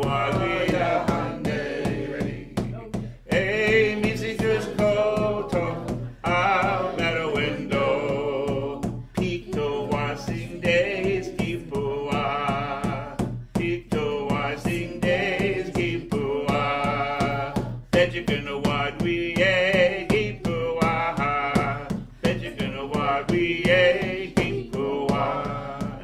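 A man singing a Native American prayer song to the eagle, a repeated chant with long wavering notes, over a steady percussive beat.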